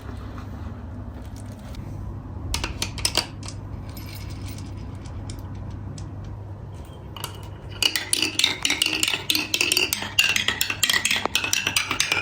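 Marbles rolling along a marble-run track with a steady low rumble, a few clicks about two and a half seconds in, then a dense, rapid clatter of clacks from about eight seconds on as many marbles knock into the track and each other.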